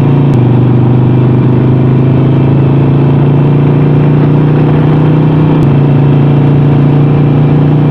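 Harley-Davidson Sportster Forty-Eight's air-cooled V-twin engine running at a steady cruising pace, its note shifting slightly twice, once just after the start and again a little past halfway.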